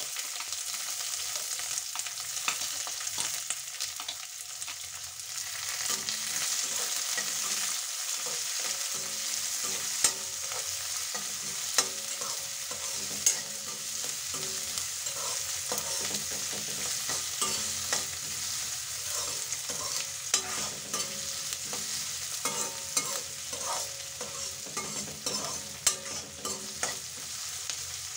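Sliced onion frying and sizzling in hot oil in a metal kadai, stirred with a metal spatula that scrapes and clinks against the pan. The sizzle is a steady hiss; the spatula's clicks come irregularly, with a few sharper knocks about ten to thirteen seconds in.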